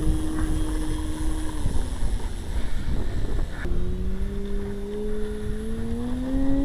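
RC model plane's motor and propeller running at a steady pitch, breaking off about two seconds in; a little later a new tone starts low and rises steadily as the throttle is opened for takeoff. Wind rumbles on the microphone throughout.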